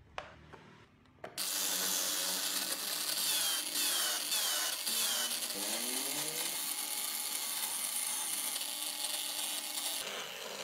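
Electric drill rigged as a lathe, spinning a wooden wheel blank while a hand chisel cuts into it: a steady hissing scrape of the tool on the turning wood, with the motor's pitch gliding up and down in places. It starts about a second and a half in and eases off near the end.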